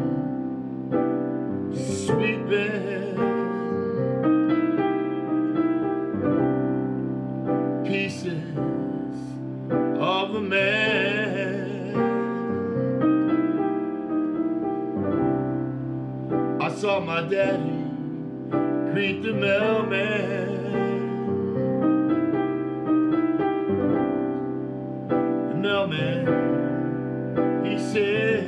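Slow keyboard music in a piano sound, playing held chords that change every second or two under a melody line.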